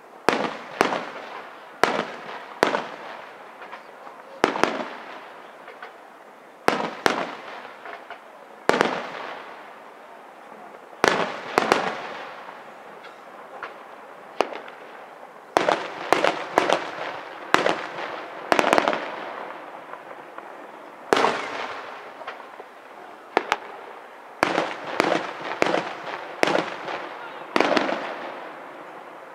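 Aerial firework shells bursting one after another, each sharp bang followed by a long fading echo, with quicker runs of bangs partway through and again later on.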